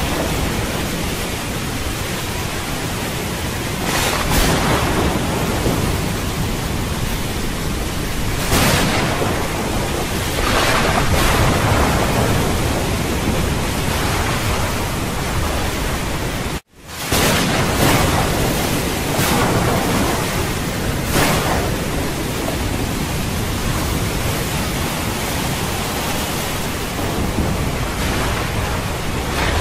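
Steady rushing noise of wind on the microphone mixed with surf, swelling louder every few seconds, with one brief cut-out just past the middle.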